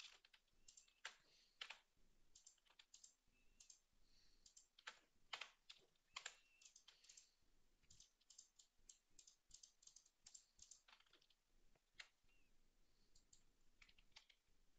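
Faint, irregular clicking and tapping of a computer keyboard and mouse while working in 3D software.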